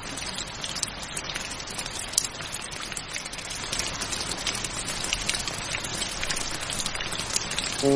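Steady rainfall with many separate drops splashing close by, one sharper drop about two seconds in.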